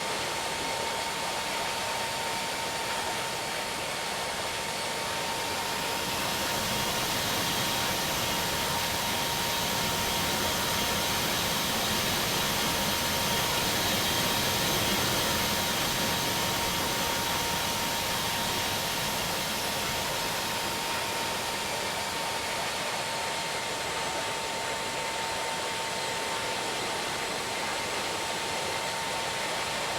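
Airbus A320 jet engines heard on approach: a steady rushing noise with a thin whine just under 1 kHz, swelling gently to a peak about halfway through and then easing off.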